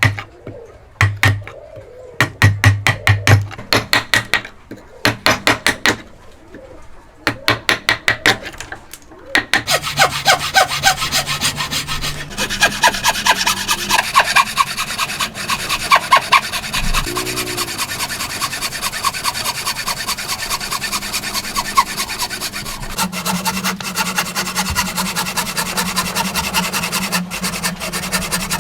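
Hand tools working timber: first, bursts of sharp knocks on wood. After about nine seconds comes a steady run of fast hand-saw strokes cutting through the timber.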